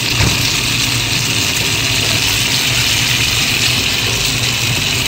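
Pork neck slices with garlic and green chili sizzling steadily in a frying pan, over a steady low hum.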